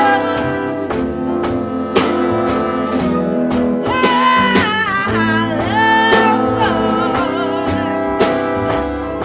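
Band music with a steady drum beat and guitar; a singing voice comes in about four seconds in.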